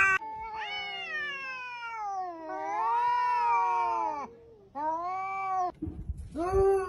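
Cats caterwauling in a face-off, the drawn-out warning yowls of cats squaring up to fight. One long wavering yowl falls and then rises in pitch for about four seconds, followed by a shorter yowl and then another that starts near the end.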